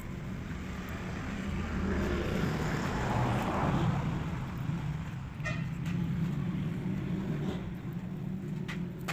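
Steady low engine rumble, swelling a little about two to four seconds in.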